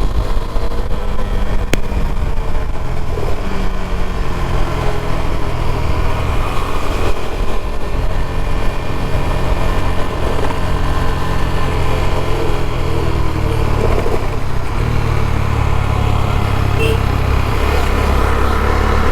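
KTM Duke 390's single-cylinder engine running steadily, its note shifting in pitch a few times.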